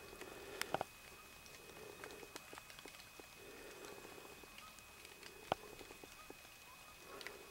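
Quiet woods with soft rustling and scattered small clicks and snaps, the sharpest a pair about a second in and one more a little past the middle, over a faint steady high whine.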